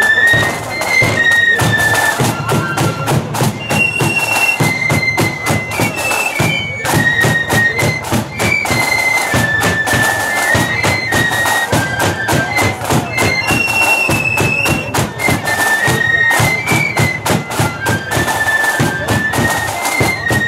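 Marching flute band playing a tune in unison on high-pitched flutes, over a steady beat of bass drum and side drums.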